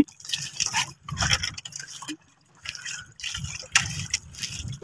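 Sea water sloshing and splashing against a small wooden outrigger boat in uneven surges, with wind buffeting the microphone. The sound drops out briefly a little past the middle.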